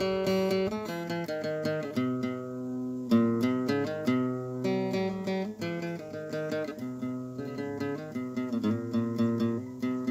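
Acoustic guitar playing a plucked melody, picked notes changing quickly with some strummed chords.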